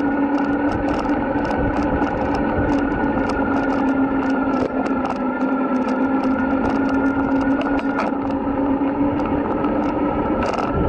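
Electric bike's motor whining at a steady pitch while riding, with a loose handlebar camera mount rattling in quick, irregular clicks over it.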